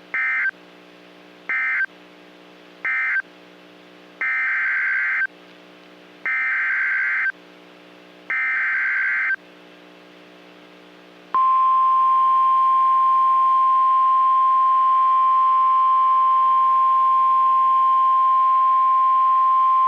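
NOAA Weather Radio alert signalling: three short bursts of warbling SAME digital data, then three longer bursts of the same data tones, then the steady 1050 Hz weather-radio warning alarm tone, held for about nine seconds. These are the coded header and alert tone that announce a new warning.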